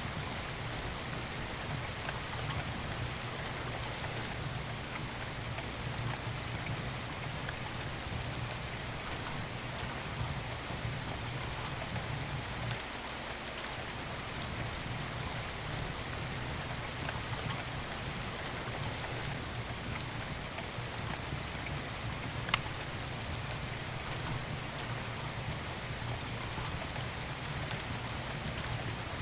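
Steady rain falling, mixed with a wood fire crackling in a fireplace. One sharp pop stands out about two-thirds of the way through.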